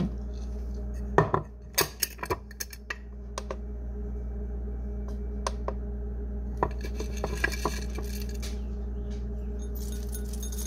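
A glass clamp-lid jar clinking and knocking as it is handled and opened, with several sharp clinks in the first few seconds, then small ticks and a light rattle as pumpkin seeds are taken out and dropped into a plastic bowl.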